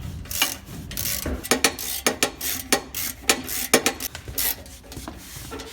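Ratchet wrench clicking in short strokes as a 13 mm nut is tightened on the muffler's spring-loaded mounting bolts: sharp clicks, a few a second, unevenly spaced.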